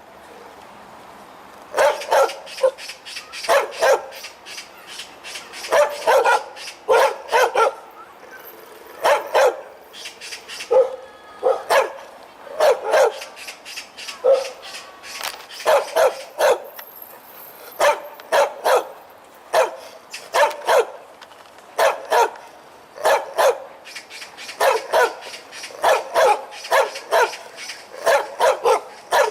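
A dog barking loudly and repeatedly, in quick groups of two to four sharp barks with short pauses between the groups.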